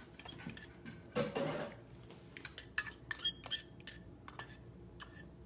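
Metal utensil scraping and tapping the inside of a small ceramic ramekin, making a string of sharp clinks, thickest about halfway through.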